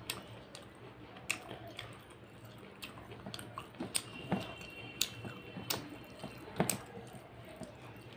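Close-up chewing and mouth sounds of someone eating mutton curry and rice, with wet clicks and smacks at irregular intervals.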